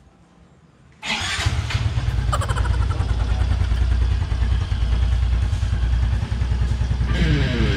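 Yamaha Mio i 125 scooter's 125 cc single-cylinder engine starting about a second in and then running steadily. It is started as a test after a fresh oil change and air filter replacement.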